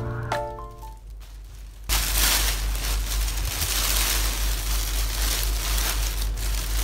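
A piano tune dies away in the first second. After a short lull, a steady, even hiss with a low hum starts suddenly and carries on unchanged.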